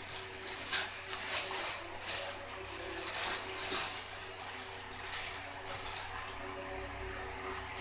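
Paper food wrapper crinkling and rustling in irregular surges as it is unfolded by hand, dying down near the end.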